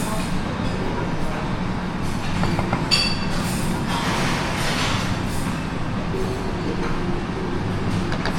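Buffet restaurant room noise: a steady low mechanical hum, with a clink of tableware about three seconds in.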